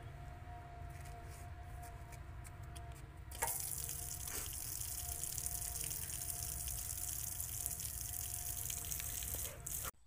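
Water gushing from a garden hose onto the ground: a steady rushing hiss that starts suddenly about three seconds in and cuts off just before the end, over a steady low rumble.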